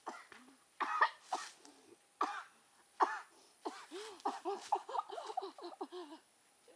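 A person coughing hard several times, then a quick run of short, pitched vocal sounds.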